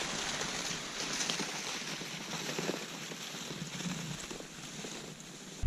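Cross-country skis and a loaded pulk sled sliding over a packed snowmobile track: an even swishing that slowly fades as the skier moves away.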